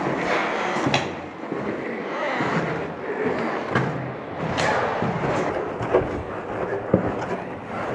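Footsteps of heavy motocross boots scuffing and crunching on a gritty floor in a narrow concrete tunnel, with several sharper knocks along the way.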